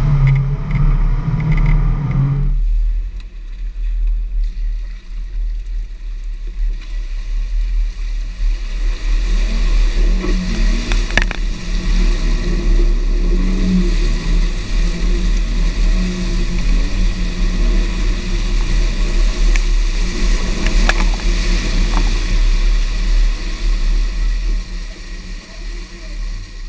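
Jeep Wrangler's engine running hard and revving as the Jeep churns through a deep mud hole, its front tyre flinging mud, with a few sharp knocks along the way. The Jeep bogs down in mud deep enough to swallow 33-inch tyres.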